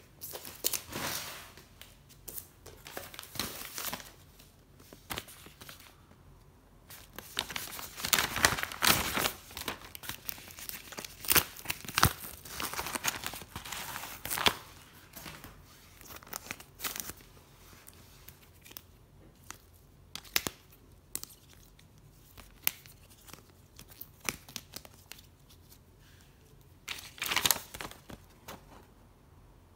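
Rustling and crinkling of packaging as hands open a padded bubble mailer and handle trading cards in plastic sleeves, in irregular bursts. It is busiest for several seconds in the middle, with another short burst near the end.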